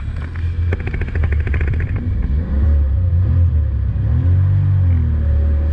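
Jet ski engine running at speed, its pitch wavering up and down as the throttle and water change. About a second in there is a rapid rattle lasting about a second.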